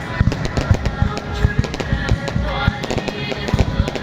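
Fireworks going off in a rapid, irregular run of sharp bangs, several a second, with music playing underneath.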